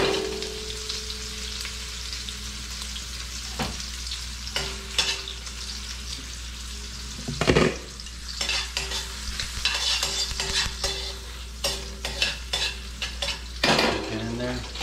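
Sliced sausage and red potatoes sizzling in butter and oil in a hot stainless steel wok, with metal tongs scraping and clinking against the pan as they are turned; the loudest clatter comes about seven and a half seconds in.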